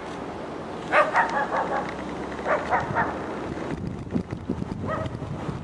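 Dog barking in short runs: a quick string of barks about a second in, another pair midway, and a single bark near the end.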